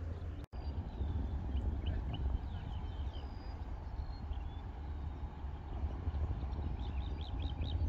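Wind buffeting the microphone as a steady low rumble, with scattered short bird chirps above it.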